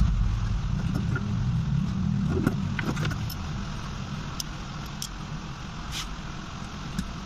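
Scattered light clicks and taps as the phone's frame is set down and pressed onto the opened Samsung Galaxy A12 body. Underneath is a low steady rumble that fades gradually.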